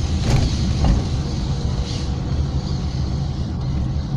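A car's engine and tyre noise heard from inside the cabin while driving slowly, a steady low rumble, with two short clicks or rattles in the first second.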